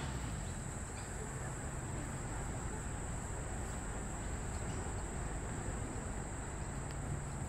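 Steady high-pitched insect chorus, droning without a break, over a low background rumble.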